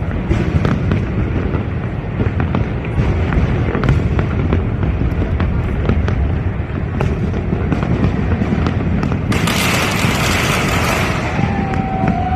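Fireworks going off without a break: a dense rumble of booms with many sharp pops and crackles. About nine seconds in comes a loud hissing crackle lasting a second or two, then a steady whistling tone near the end.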